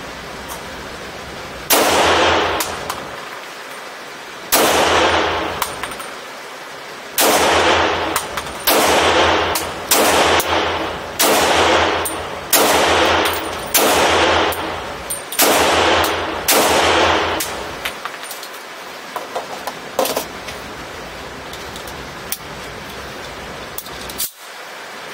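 Sig Sauer P229 Legion pistol in .357 SIG with a custom compensator and Bar-Sto barrel firing ten shots, the first three a few seconds apart and the rest about one a second. Each shot rings out in a long echo off the indoor range. A few light clicks follow.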